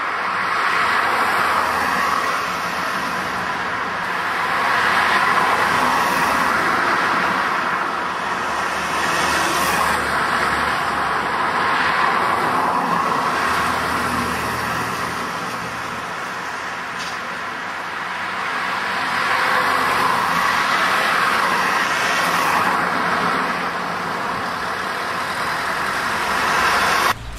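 Road traffic: cars and trucks driving past one after another, the noise swelling and fading with each pass. It cuts off suddenly near the end.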